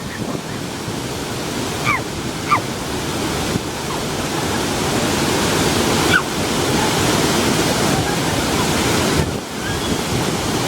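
Waterfall rushing: a steady, dense roar of falling water, with a few short high chirps over it about two seconds in and again near six seconds.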